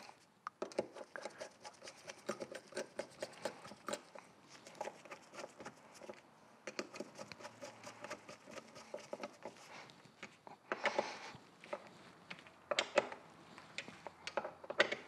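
Small metal power steering pump parts and hand tools being handled during reassembly: irregular light clicks and taps, with a few brief louder rustling or scraping sounds near the end.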